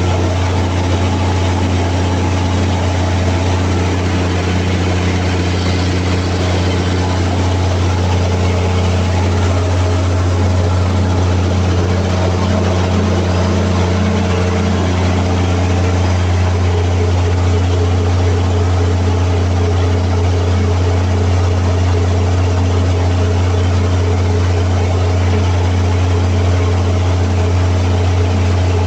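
Cummins QST30 V12 diesel engine, freshly overhauled, running steadily on test with a deep, even drone.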